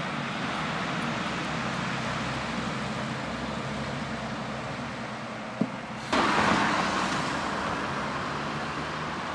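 Outdoor street ambience of steady road traffic noise, with a short click and then a sudden louder swell of noise about six seconds in that fades away over a second or so.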